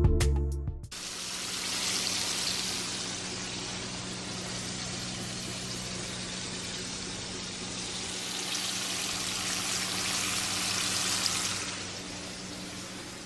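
Intro music cuts off about a second in, then thin strips of seasoned fish fillet fry in hot oil: a steady sizzle with a faint low hum beneath. It fades somewhat near the end.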